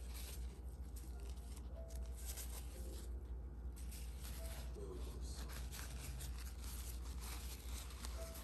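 Faint, irregular scratchy rustling as tapioca cheese breads are picked from a bowl by hand and a paper napkin is handled near the end, over a steady low hum.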